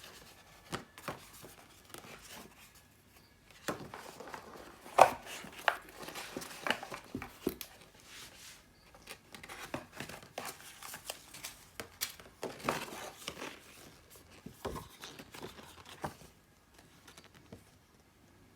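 Packaging of a headphone box being handled and opened: irregular crinkling and rustling with scattered knocks, loudest about five seconds in, dying away near the end.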